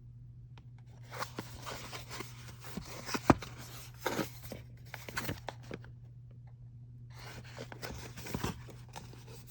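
Packaging being handled and opened: bursts of rustling and crinkling mixed with sharp taps, the loudest a single knock a little over three seconds in, with a short lull about six seconds in.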